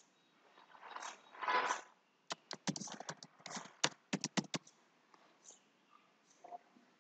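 Computer keyboard typing: a quick run of a dozen or so key clicks about two seconds in, lasting about two seconds, after a brief breathy noise.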